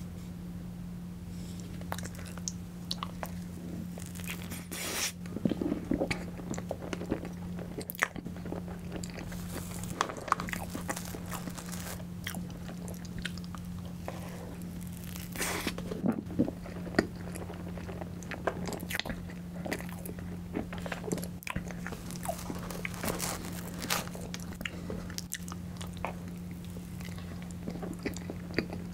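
Close-miked mouth sounds of a person eating spoonfuls of soft tiramisu cake: irregular wet chewing and smacking. A steady low hum runs underneath.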